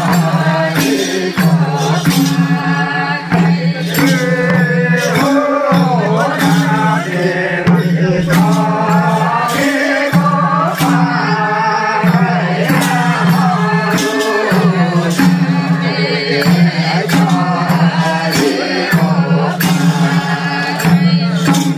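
Voices singing a Nepali Bhailo festival song over a held low drone note, with percussion striking repeatedly throughout.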